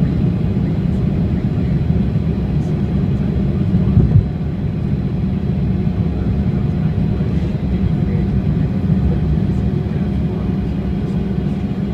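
Cabin noise of a Bombardier CRJ200 at takeoff power during liftoff and initial climb: the rear-mounted GE CF34 turbofans and airflow make a steady low rumble. A brief louder bump comes about four seconds in, after which the noise runs slightly quieter.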